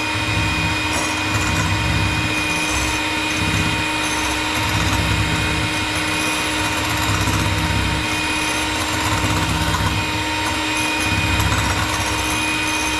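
Electric hand mixer running steadily at speed, a constant motor whine as its twin beaters whip egg whites in a glass measuring cup, beating them toward stiff peaks.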